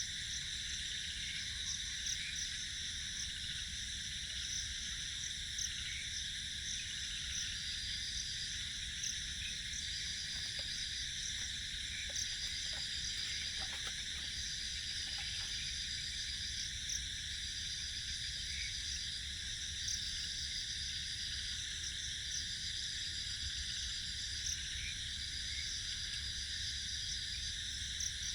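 A chorus of night insects chirring steadily and high, with one repeated pulsed trill that comes in bursts of a second or two with short gaps.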